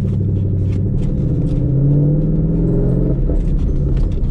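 Ford Mustang GT's 5.0-litre V8 pulling under acceleration, heard from inside the cabin. The engine note climbs in pitch over the first two seconds and breaks briefly about three seconds in.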